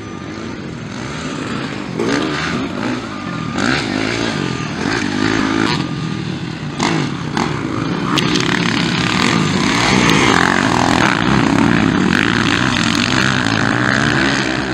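Motocross dirt bike engines revving on a dirt track, pitch rising and falling with the throttle as the bikes accelerate and brake through corners and jumps; louder in the second half as a bike accelerates close by.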